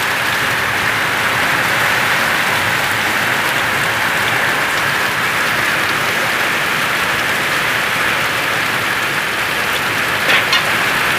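Rain falling steadily, a loud even hiss, with a couple of sharper taps near the end.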